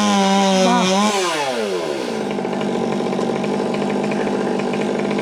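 Chainsaw engine at full throttle, then the revs fall away about two seconds in and it runs on at a steady lower speed.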